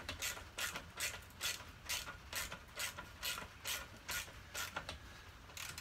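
Socket-set ratchet worked back and forth to tighten a bolt on the motorcycle's rear shock mounting. The pawl clicks in short runs, about two a second.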